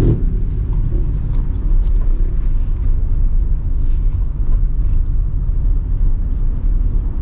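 Car engine and road noise heard from inside the moving car: a steady low rumble.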